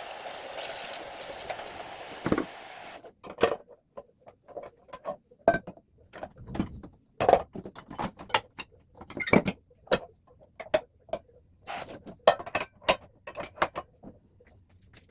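A steady rushing noise stops about three seconds in. After it comes a long, irregular run of clinks, clacks and knocks: household items and containers being picked up and set down during cleaning.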